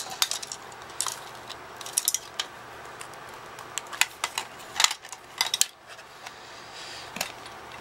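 Hard plastic parts of a Respironics sleep apnea machine's casing clicking and knocking as they are handled and pulled apart: an irregular string of sharp clicks.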